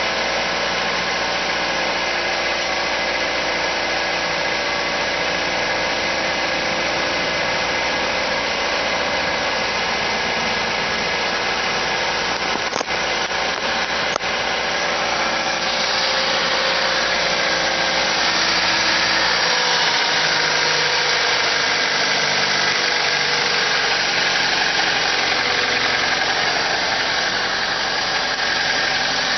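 Car engine idling steadily, an idle the owner suspects is being raised by a vacuum leak. Two sharp clicks come about 13 and 14 seconds in, and from about 16 seconds the sound gets slightly louder and brighter.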